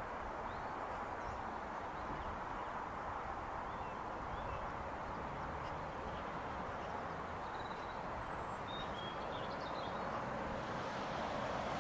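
Steady outdoor background noise with faint bird chirps scattered through it; the noise grows a little louder near the end.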